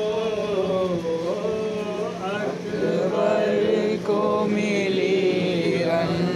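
Male voices chanting a Muharram mourning lament (noha) in long, drawn-out melodic lines, one lead voice with others joining in.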